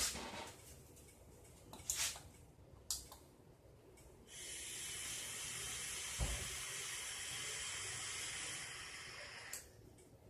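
Kitchen tap turned on and running steadily for about five seconds, then shut off, after a few light knocks; one low thump while it runs.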